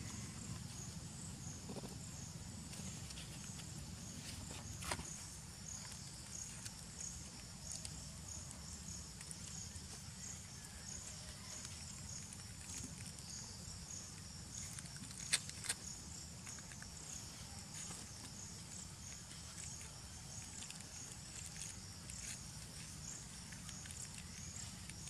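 Insects calling with a high, evenly pulsing chirp about one and a half times a second, over a steady low rumble. A sharp click comes about five seconds in, and two more about fifteen seconds in.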